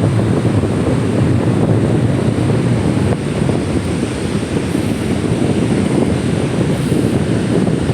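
Wind buffeting the microphone in a steady low rumble, over the wash of ocean surf at the water's edge.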